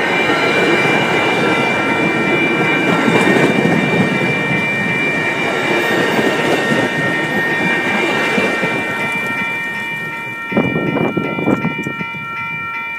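Commuter rail passenger coaches rolling past, their wheels rumbling and clattering over the track. The rumble eases near the end, with a few last knocks as the final car clears. A grade-crossing warning bell rings steadily throughout.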